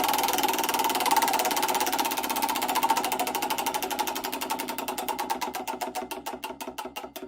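Rapid mechanical clicking or rattling that slows down steadily, the separate ticks growing further apart, until it winds down and stops near the end.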